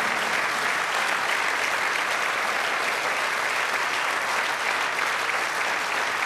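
A large crowd applauding, a dense, even clapping that holds steady.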